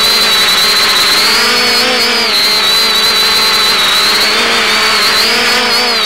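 X550AIOP quadcopter's brushless motors and propellers whining steadily at several pitches, which waver slightly as the motor speeds shift in flight. The sound comes over the FPV video downlink.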